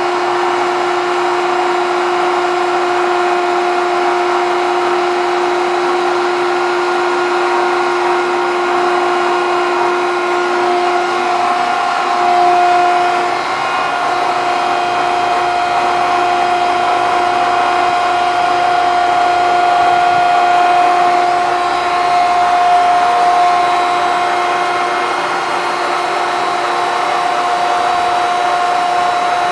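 Landis 14 x 120 Type C plain cylindrical grinder running: a steady machine whine made of several even tones over a rushing hiss, with a slight shift in tone about eleven seconds in.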